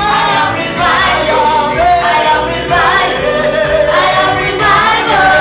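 Gospel worship singing by a group of voices, with a steady instrumental accompaniment underneath.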